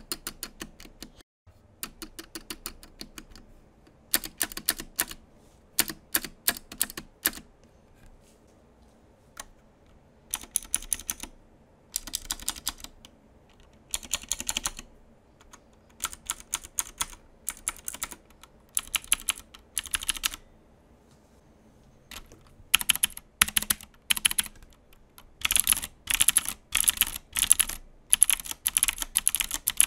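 Typing on a mechanical keyboard with clicky Cherry MX Blue switches: sharp key clicks in bursts of fast keystrokes with short pauses between. The typing is sparser at first and densest and loudest near the end.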